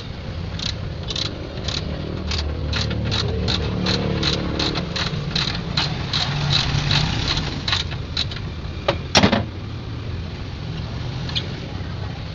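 An engine running, with a row of sharp taps that quicken to about four a second and then stop, followed by one loud knock about nine seconds in.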